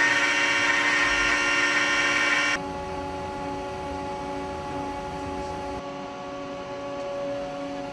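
High-speed CNC milling machine running: a loud, high-pitched whine made of several steady tones for about the first two and a half seconds, then an abrupt change to a quieter, lower steady hum.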